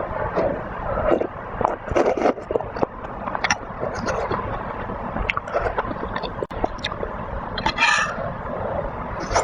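Close-miked eating: wet chewing, smacking and slurping of cheese balls in soup, with many short clicks and a louder slurp near the end.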